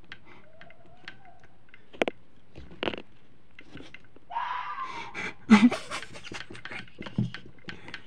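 Red fox screaming: a harsh, hoarse call about four seconds in, running straight into a louder, noisy burst. A couple of sharp clicks come before it.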